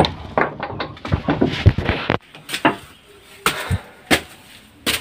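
Knocks and clatter of someone walking into a house with a handheld phone: a quick run of them over the first two seconds, then a few sharper single knocks.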